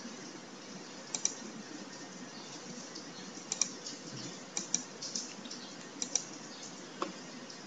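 Computer mouse buttons clicking: a scattered series of sharp clicks, several in quick pairs, over faint room hiss.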